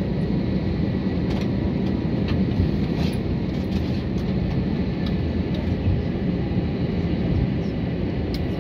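Steady cabin rumble of a jet airliner taxiing on the apron, with a faint high engine whine held on one pitch and a few light rattles.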